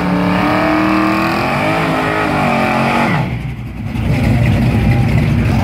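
Loud V8 engine revving in rising and falling swells. About three seconds in, the sound drops out briefly, then a Fox-body Mustang launches hard with a dense low engine rumble.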